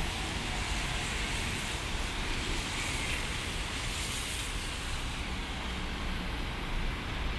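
Road traffic on wet asphalt: cars and buses passing with a steady tyre hiss over a low rumble, swelling as a vehicle goes by a few seconds in.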